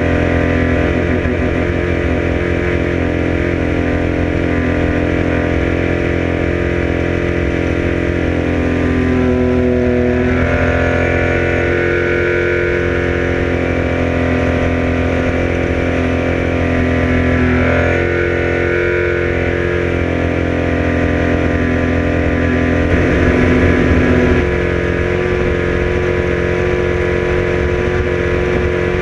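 Outboard motor of an Argo Cat 15 speed boat running hard at high cruising speed, a steady engine note that dips and picks up again in pitch a couple of times.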